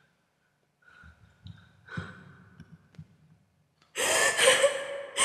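A woman's faint breaths and gasps as she comes round, then a loud, sudden gasping cry about four seconds in.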